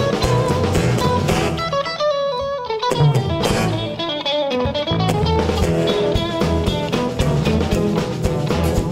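Live blues band playing an instrumental passage: electric and acoustic guitars over bass guitar and drum kit, with no singing. About two seconds in, the bass and drums drop out for a few seconds while a guitar plays a short lick nearly alone, and the full band comes back in about five seconds in.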